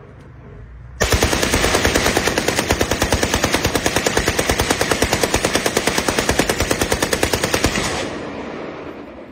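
A .222-calibre Saiga-style AK-pattern rifle firing on full auto. One long continuous burst at about ten shots a second starts about a second in and stops after roughly seven seconds, then echoes away.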